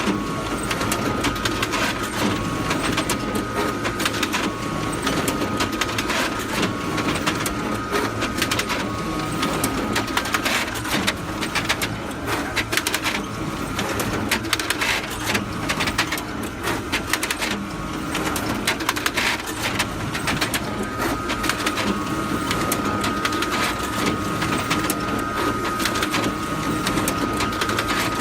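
Photocopier running continuously: a steady mechanical churn with many rapid clicks and a high steady whine that grows stronger near the end.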